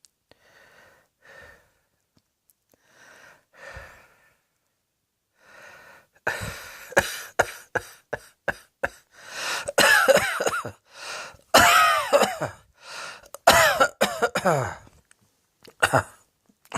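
A person breathing audibly, then from about six seconds in a long coughing fit: many rapid, harsh coughs in quick succession, with strained gasps that slide up and down in pitch between the bursts.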